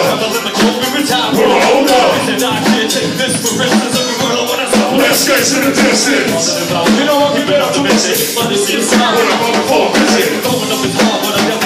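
Live hip hop music from a band with a drum kit and cymbals, with a voice on the microphone over it.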